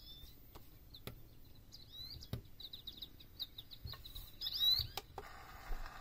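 Recorded birdsong nature sound, a string of short chirps, played through the speaker of a Sony ICF-C707 Dream Machine clock radio, with a few sharp clicks of its preset buttons. About five seconds in the birdsong cuts off and a steady rushing sound like running water takes over as the next nature-sound preset is selected.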